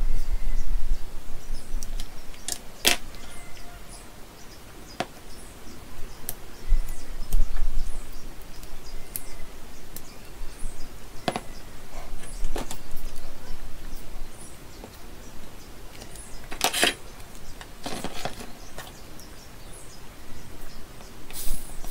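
Scattered clicks and taps of hands working on a cordless-tool battery pack: multimeter probes on its circuit board, then a screwdriver and soldering iron on the cell holder. A low rumble comes and goes underneath.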